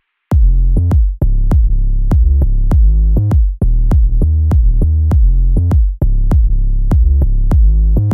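Background electronic dance music: a steady kick drum at about two and a half beats a second over a deep bass line, with faint high ticks on top.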